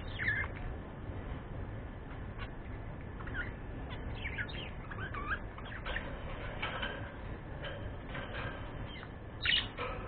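Budgerigars chirping and squawking: short chirps that bend up and down in pitch come every second or so, with louder squawks just after the start and again near the end.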